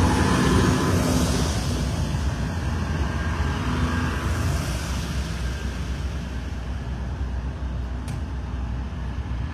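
Heavy vehicle engine running as a parade vehicle pulls out and drives off, its sound slowly fading.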